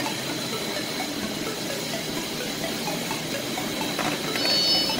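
Steady background machinery noise, an even hiss with a faint low hum and a thin high tone. A high electronic beeping of several tones at once starts near the end.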